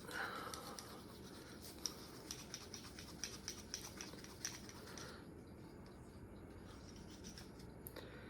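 Scratchy rubbing and small clicks as a Glock pistol's barrel is rubbed clean by hand, busy for the first five seconds or so and then fainter.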